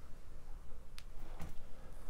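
Quiet room tone with a single light click about halfway through and a fainter low knock just after, from a hand handling a Blu-ray box set.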